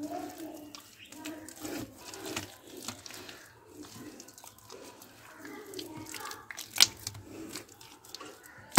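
Wet mud squelching and slopping as a hand scoops and works it inside a clay stove's opening, with irregular soft scrapes and one sharper click about seven seconds in.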